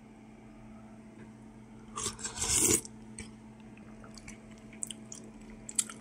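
A person slurping a spoonful of borscht, one loud slurp about two seconds in, followed by quiet chewing with a few small mouth clicks.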